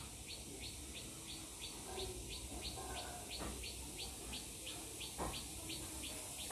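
Steady rhythmic chirping from a small calling animal: short high chirps repeated evenly, about three a second.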